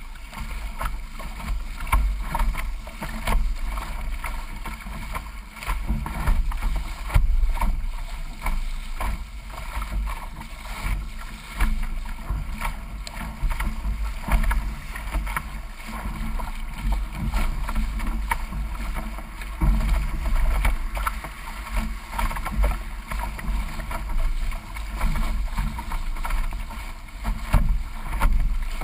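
Water rushing and splashing along the hull of a D-One sailing dinghy under way, in irregular bursts over a steady low rumble.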